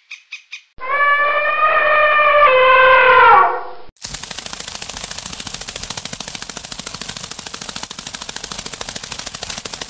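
A long, loud pitched animal call lasting about three seconds, falling in pitch at its end. From about four seconds in it gives way to a steady, dense rapid crackling buzz from honeybees crowding a brood comb.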